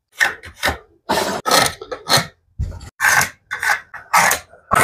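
Pencil scratching layout marks onto a wooden 2x4 bottom plate against a square: about a dozen short scrapes, with a dull knock near the middle.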